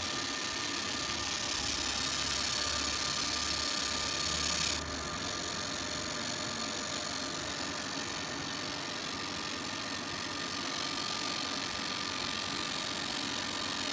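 Fiber laser marking machine with a 3D dynamic-focus scan head running: a steady hiss of fans with two faint thin whine tones. A low hum drops out and the level dips slightly about five seconds in.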